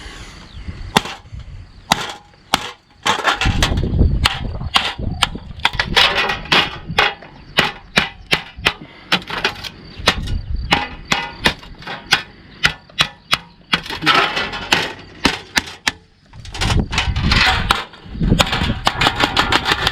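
Victorinox Forester pocketknife being struck over and over in batoning, a steady run of sharp, hard hits about two to three a second, with two short pauses.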